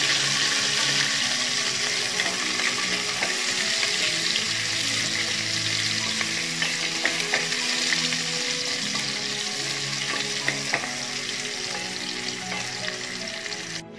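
Sliced onions sizzling in hot ghee in a stainless steel pot, stirred with a wooden spatula that gives small scrapes and clicks against the pot. The sizzle cuts off suddenly at the very end.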